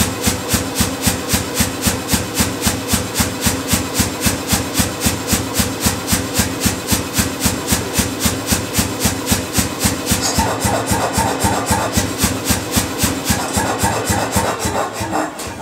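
Say-Mak SPH-60 self-contained air hammer running just after being switched on, its motor-driven compressor pulsing in an even beat of about four strokes a second.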